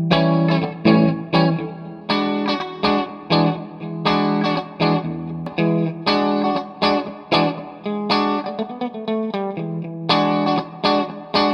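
Guitar played alone, picked notes and chords struck one after another and left ringing.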